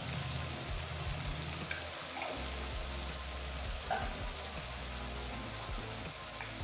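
Mustard oil sizzling steadily in a kadai as ground cumin and turmeric fry in it, with a brief faint click about four seconds in.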